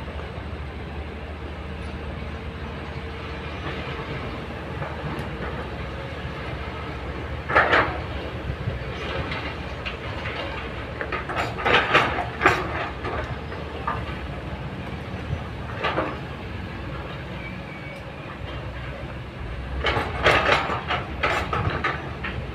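Kobelco hydraulic excavator's diesel engine running steadily as its steel bucket digs into rocky soil, with loud clatter of rock and steel about four times.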